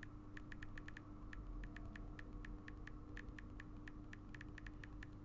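Typing out a text message: a quick, irregular run of light key clicks, about five a second in short clusters, over a faint steady hum.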